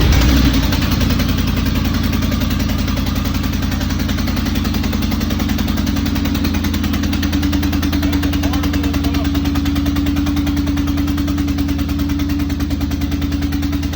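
Corvette engine catching and settling into a steady idle with a fast, even pulsing, loud and unmuffled from major exhaust leaks.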